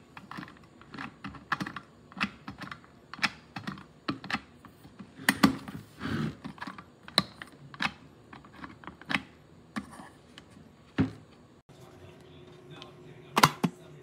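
Irregular sharp clicks and taps, about one or two a second. Near the end, after a cut, a faint steady hum and one loud click.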